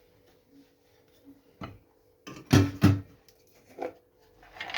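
Kitchen utensils and containers knocking against a bowl while spices go in. There are a few sharp knocks, two louder ones close together about midway, then a short rattle near the end, over a faint steady hum.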